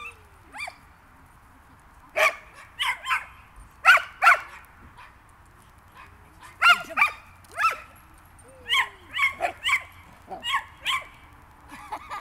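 Dog barking repeatedly: about a dozen short, sharp, high-pitched yaps, mostly in quick groups of two or three.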